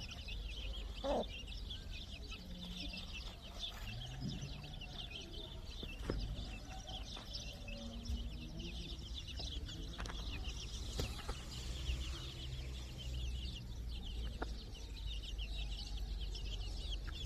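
Many chicks peeping continuously in a dense high-pitched chorus, with adult chickens clucking lower now and then.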